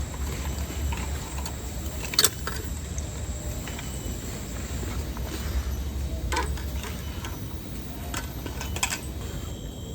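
A few sharp clicks or knocks, about two seconds in, again near the middle, and a quick pair near the end, over a steady hiss and low rumble.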